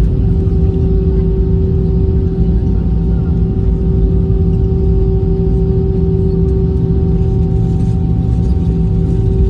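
Airliner cabin noise during the landing rollout, heard from inside the cabin: a steady deep rumble from the engines and the wheels on the runway, with a steady humming tone over it.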